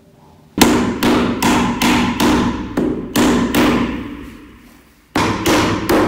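Hammer blows on a steel desk frame, driving the crossbars into the legs, each blow ringing on the metal. About ten strikes come at a steady beat of two or three a second, then a pause, then three more near the end.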